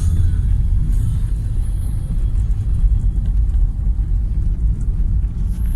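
Loud, steady low rumble of a car in motion.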